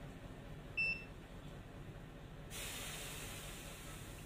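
Kyoritsu digital multimeter giving one short, high beep about a second in as its probes touch the legs of a transistor being tested. A low steady hiss runs underneath and gets a little louder about two and a half seconds in.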